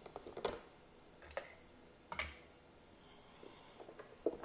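Air box of a 2002 Polaris Sportsman 700 ATV being worked loose and pulled out by hand: a string of sharp clicks and knocks, bunched near the start and near the end, with single knocks between.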